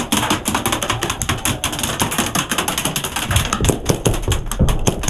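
Airsoft guns firing in a close exchange: rapid, irregular clicks and snaps. A few dull thumps come in about three and a half to five seconds in.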